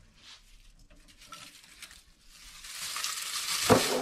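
Crispy dehydrated leek pieces rustling and crackling on a flexible plastic mesh dehydrator sheet as it is lifted and bent. The noise starts about two seconds in and grows louder, with a sharp click near the end.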